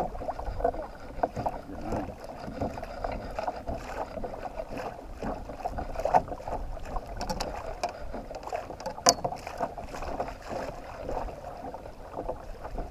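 Water lapping and sloshing irregularly against the hull of a drifting kayak, with a few short knocks against the boat, the sharpest about six and nine seconds in.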